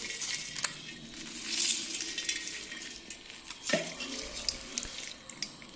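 Hands squeezing and mashing ripe karbala fruit in a vessel to press out the juice by hand: uneven wet squishing and splashing.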